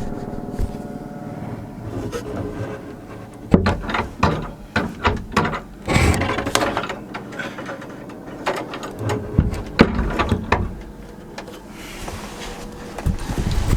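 Rustling and knocking close to the microphone, in irregular spurts about three and a half to seven seconds in and again around ten seconds, over a faint steady hum.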